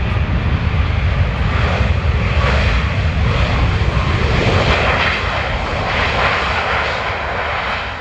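Boeing 737 jet engines at takeoff thrust as the airliner accelerates down the runway: a loud, steady roar with a deep rumble underneath.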